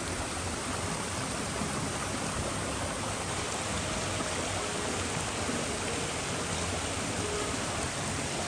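Steady rush of water from a waterfall or stream, an even, unbroken noise.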